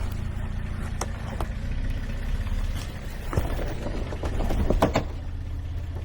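Off-road truck engine running low and steady at crawling speed on a rocky trail, with a few sharp clicks and knocks, about a second in, about three and a half seconds in and twice just before five seconds.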